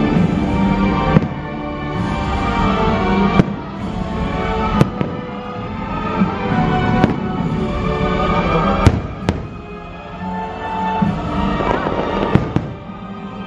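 Aerial fireworks bursting in scattered sharp bangs, about half a dozen, the loudest a close pair about nine seconds in, over the show's soundtrack music.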